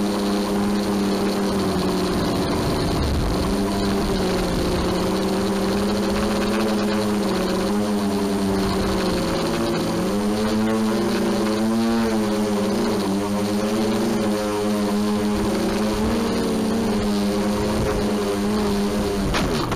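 DJI Flame Wheel multicopter's electric motors and propellers running, heard close up from the craft itself: a steady multi-pitched hum that wavers up and down in pitch as the craft manoeuvres, with a short knock near the end.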